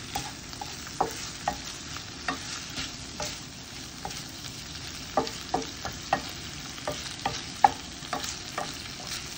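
Salmon pieces and bok choy sizzling in a frying pan with a steady hiss, while a wooden spatula stirs them, knocking and scraping against the pan at irregular moments, more often in the second half.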